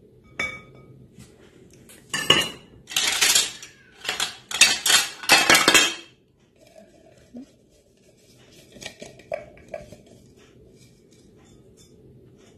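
A spoon and a silicone spatula scraping and knocking coarsely chopped almonds out of a plastic food-chopper bowl into a ceramic bowl. A couple of knocks come first, then about four seconds of loud scraping, then a few light clinks.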